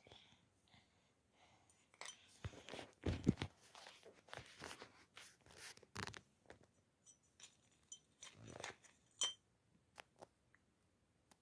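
Irregular handling noises of small objects: a run of short scrapes, rustles and taps, loudest about three seconds in, ending with a sharp click near the end.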